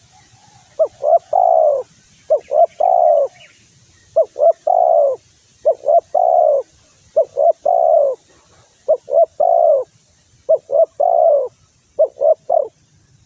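Spotted dove (tekukur) cooing its song: eight repeated phrases, each two or three short clipped notes followed by a longer rolling coo, about every second and a half. This is the challenge song that keepers use to provoke rival males.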